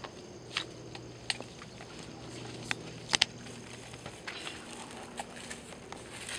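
Rustling and crunching in dry grass and straw, with several sharp snaps and clicks, the loudest a quick double snap about three seconds in. Footsteps through the dry grass in the last couple of seconds.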